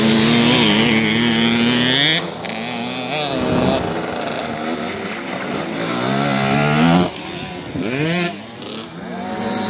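Children's dirt bike engines revving up and down through the mud, the pitch rising and falling with each twist of the throttle. The engine note is loudest for the first two seconds, drops suddenly about two seconds in, and swells again before falling away about seven seconds in.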